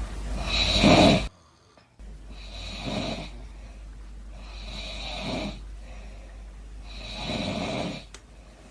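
A woman snoring in slow, regular breaths: four snores, about two seconds apart.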